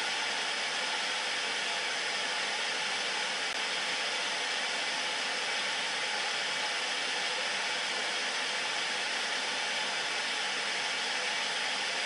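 Steady hiss of static from an old analog television receiving no signal.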